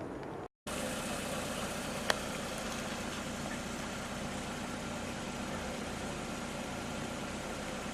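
Car engine running at a steady low speed while the car tows a root-cut tree out of the ground, with one sharp click about two seconds in.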